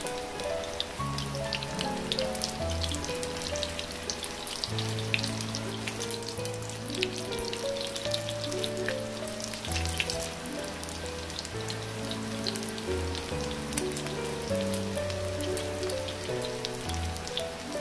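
Oil sizzling and crackling steadily around battered eggplant and ground-pork fritters shallow-frying on low heat in a nonstick pan. Background music plays over it with slow sustained notes.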